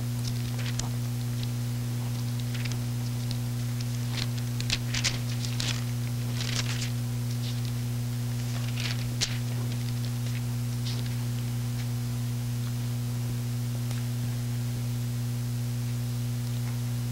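Pages of a Bible being turned, soft scattered rustles and a few light clicks during the first ten seconds or so, over a steady low electrical hum.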